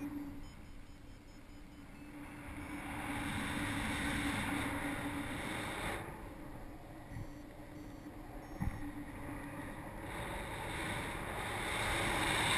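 Wind rushing over the microphone of a camera on a flying paraglider, swelling and easing in gusts, with a dip about halfway through and a rise near the end.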